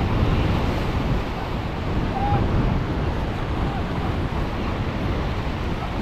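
Wind buffeting the microphone over the steady wash of waves and surf at an ocean inlet.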